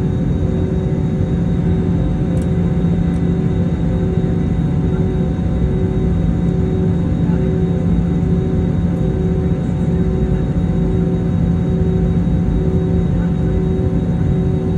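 Airbus A321neo jet engines running steadily, heard from inside the passenger cabin as a loud, even rumble with a steady hum.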